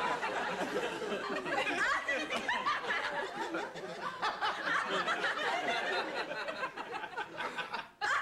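Studio audience laughing, a crowd of many voices that thins out over the last few seconds.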